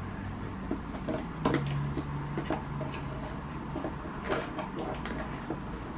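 Scissors snipping and the cardboard-and-plastic toy packaging being handled, heard as scattered sharp clicks and snips.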